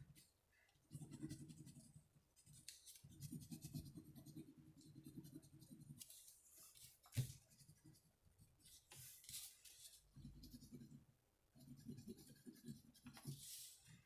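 Faint scratching of a crayon rubbed back and forth on construction paper to blend colours, in several short spells, with a single sharp tap about seven seconds in.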